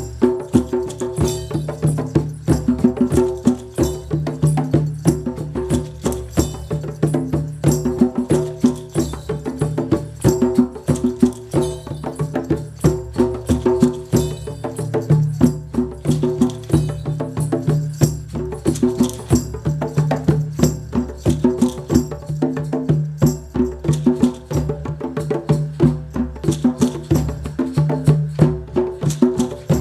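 Live acoustic music: fast, busy wooden percussion clicks over low sustained pitched tones.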